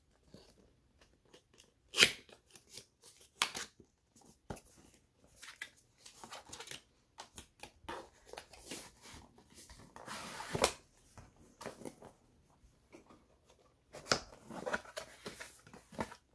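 White cardboard retail box being opened by hand: irregular taps, clicks, scrapes and rustles as the flaps are folded back and the inner cardboard tray is slid out. There is a sharp click about two seconds in and a longer scrape of cardboard near the middle.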